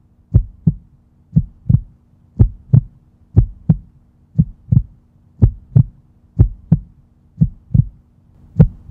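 Heartbeat sound effect: paired lub-dub thumps about once a second, over a faint steady hum.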